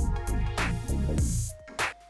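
Electronic dance music with a heavy drum-machine beat: sharp snare hits about every half second over bass notes that slide down in pitch.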